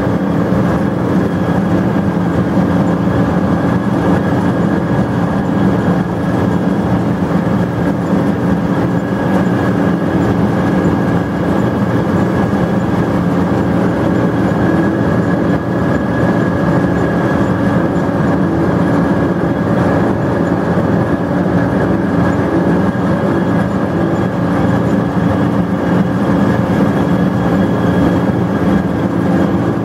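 Harvester running steadily as its belt pickup feeds in a windrow of dry grass, heard from inside the cab: an even machine drone with a thin high whine over it.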